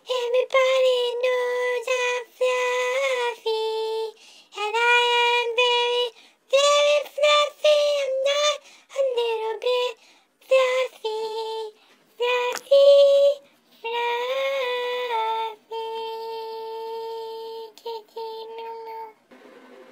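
A high-pitched cartoon voice singing a song without accompaniment, in short held notes with brief silences between phrases, stopping near the end.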